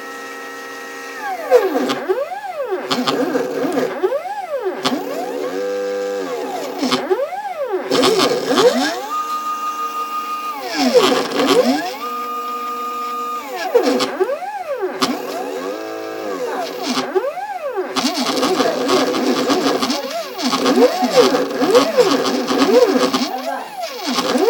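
Stepper motors of a homemade mini CNC plotter whining as the axes move, the pitch sweeping up and down over and over as each move speeds up and slows down, holding a steady tone on longer straight runs. In the last few seconds the moves are shorter and come faster.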